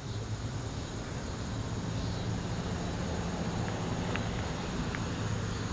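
Low, steady hum of a distant engine over a rumbling outdoor background.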